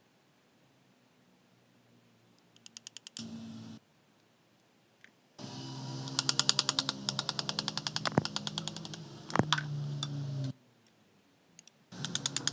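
Mechanic's tools working on a stripped gearbox: short bursts of rapid rattling clicks with a low steady hum, and two sharp metal knocks in the middle stretch. Each burst starts and stops abruptly.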